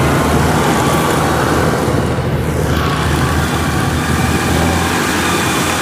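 Kubota DC105X rice combine harvester running steadily: a continuous engine drone with the rushing hiss of its cutting and threshing machinery.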